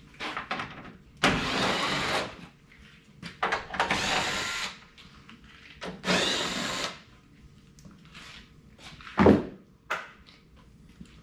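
Handheld power drill running in three short bursts of about a second each, then a single sharp knock about nine seconds in.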